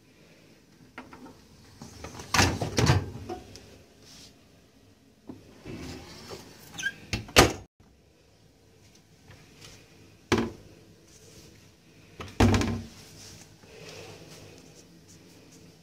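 Knocks and metallic clatter from a compact Electrolux countertop dishwasher being handled: the wire rack rattling and the door being shut, ending in a sharp latch click about seven seconds in, then two more single knocks.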